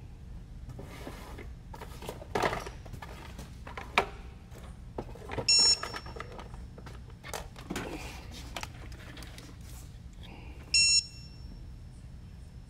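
Two short, high electronic beeps about five seconds apart, with scattered clicks and knocks of handling on the workbench in between.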